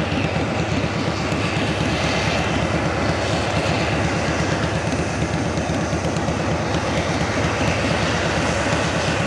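John Deere 9860 STS hillside combine harvester running steadily at work, a heavy machine drone with a fast low pulse.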